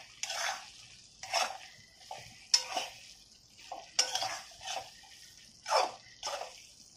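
A metal utensil scraping and clinking against a kadhai as stuffed brinjals are stirred and turned in masala, in separate strokes about once a second.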